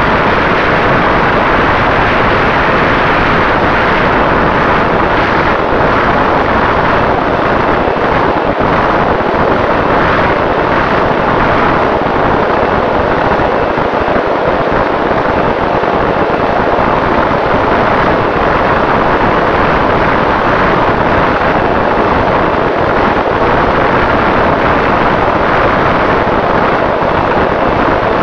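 Electric motor and propeller of an AR900 RC flying wing running at half throttle, picked up by the onboard camera as a loud, steady rush of wind noise with a faint constant motor tone running through it.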